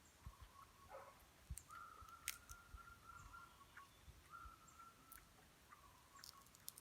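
Near silence with faint scattered clicks and soft low knocks, and a faint thin high tone that holds twice, about a second or more each time.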